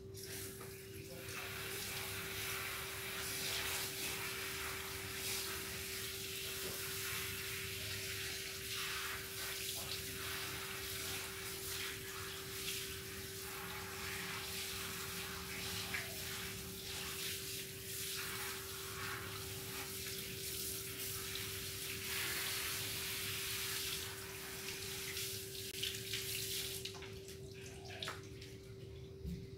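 Water spraying steadily from a garden hose nozzle onto a dog's legs and paws, splashing on the tile floor; the spray stops near the end.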